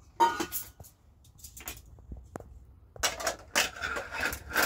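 Long flat metal kebab skewers clinking and clattering against each other as they are handled. There is a sharp clink just after the start, a few light taps, then a quick run of rattling near the end.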